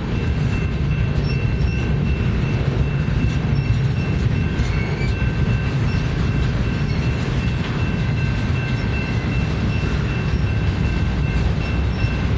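Double-stack intermodal container train rolling past: a steady low rumble of wheels on rail, with a faint steady high-pitched tone over it.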